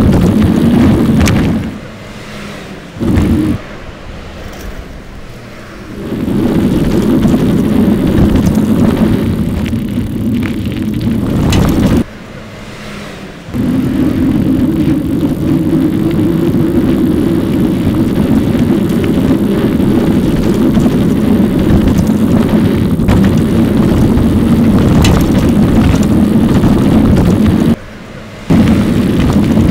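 Wind and road noise on a bike-mounted camera while riding an e-bike, a steady rushing noise that drops away abruptly three times, the longest for a few seconds near the start.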